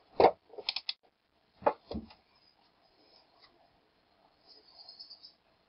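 A multimeter is set down on a wooden bench with a sharp knock, followed by a quick run of small clicks and two more knocks as the meter and its test leads are handled. A faint steady hum runs underneath.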